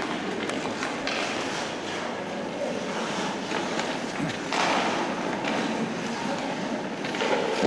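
Ice hockey skate blades scraping and carving on rink ice, with a few sharp clacks of sticks and puck and a louder scrape about four and a half seconds in.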